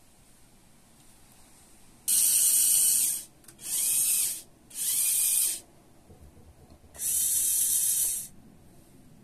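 Small Lego Power Functions electric motor whirring through its plastic gears in four short bursts, each about a second long, switched on and off from the infrared remote; the last burst is the longest.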